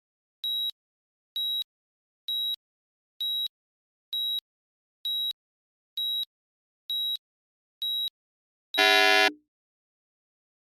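Electronic timer alert: nine short, high beeps about once a second, then a single louder, fuller buzzer tone about nine seconds in, marking the end of the 30-minute countdown.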